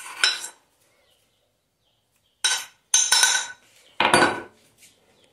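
Metal garlic mortar clinking and knocking as crushed garlic and salt are tapped and scraped out. There is a brief clatter at the start, then a pause, then a few sharp ringing metal clinks and one heavier knock about four seconds in.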